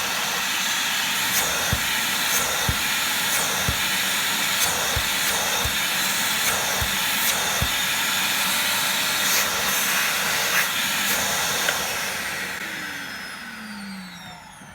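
Titan TTB774VAC 1300 W wet and dry vacuum cleaner running with a loud, steady rush of air, with light knocks about once a second through the first half. About twelve seconds in the motor winds down with a falling whine.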